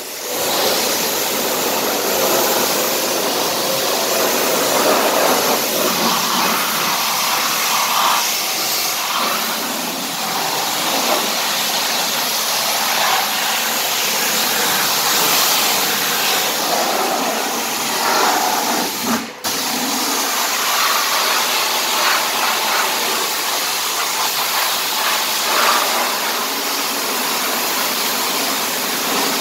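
High-pressure washer jet blasting mud off a car's underbody and wheel arch: a loud, steady hiss of spraying water that cuts out briefly once, about two-thirds of the way through.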